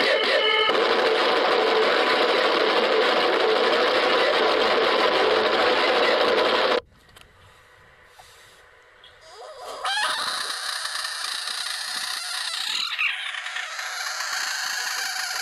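A loud, steady static-like hiss that cuts off suddenly about seven seconds in. After a few seconds of near quiet, a frog being poked lets out a long, high-pitched scream that rises at the start and wavers to the end.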